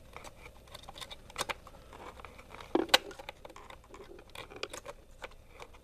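Laptop RAM module being handled and pushed into its memory slot: light scrapes and small scattered clicks, with one sharper click about three seconds in.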